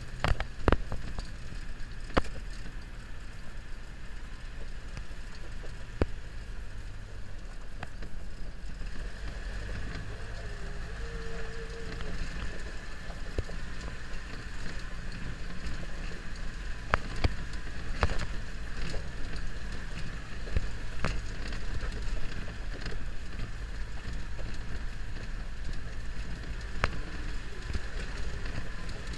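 Land Rover engine running steadily at low speed, with occasional sharp knocks and rattles from the vehicle over the uneven track.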